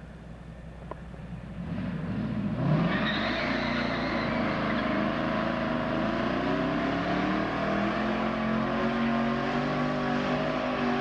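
1996 Ford Thunderbird doing a burnout: the engine revs up about two seconds in and is held at high revs while the rear tyres spin and squeal steadily.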